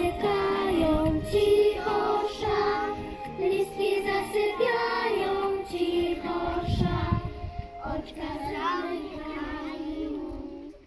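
Children's song: children's voices singing together over an instrumental backing track, getting quieter toward the end and then stopping abruptly.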